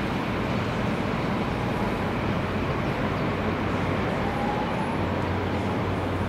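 A pair of German diesel-hydraulic locomotives, a DB class 215 and a class 212, running coupled together and pulling away over the station tracks: a steady low diesel-engine rumble with a constant hum.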